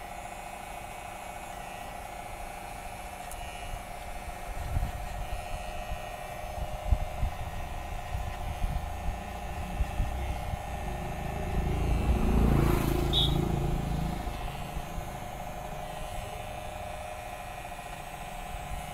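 Cordless hair clipper running with a steady hum, cut over a comb to blend out a step line in the hair at the back of the head. A louder low rumble swells and fades a little past the middle.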